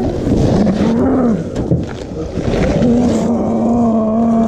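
Zombie actors growling and moaning: rough, drawn-out human vocalisations, with a short rising-and-falling call about a second in and one long held moan near the end.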